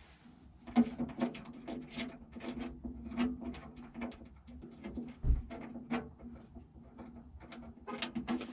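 Hand tools and loose screws clicking and knocking against the steel truck door as the door latch screws are taken out, with a steady low hum underneath and one dull thump about five seconds in.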